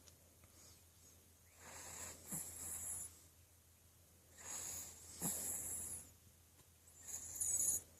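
Chihuahua snoring in its sleep: three snoring breaths spaced a couple of seconds apart, each with a high whistling note.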